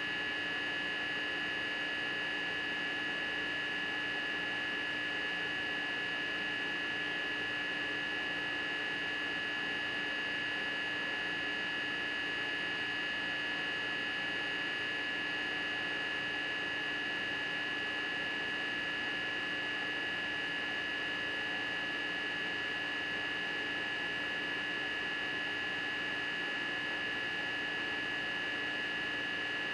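Steady, unchanging hum with a constant high-pitched whine over a low hiss.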